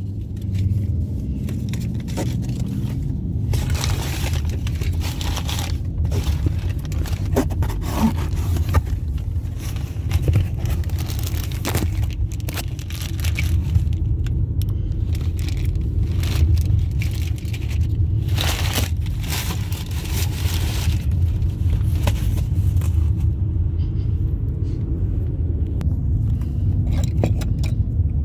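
Crumpled packing paper rustling and crackling as it is pulled out of a cardboard box, in several uneven bursts, the longest about two-thirds of the way through. Underneath, a steady low rumble of a car's cabin.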